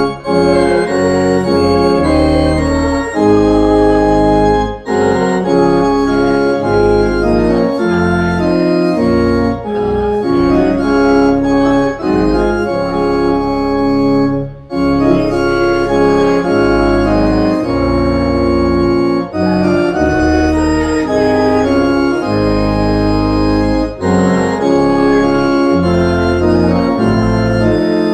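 Church organ playing a hymn in sustained chords, phrase by phrase, with a short break roughly every five seconds.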